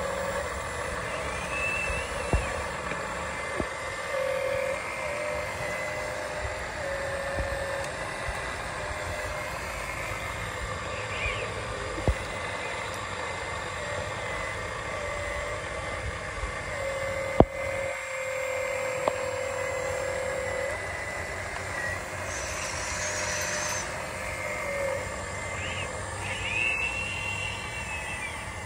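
Small electric motors and gearboxes of radio-controlled excavators and dump trucks whining in short spells that start and stop, over a steady background hiss, with a few sharp clicks, the loudest about two-thirds of the way through.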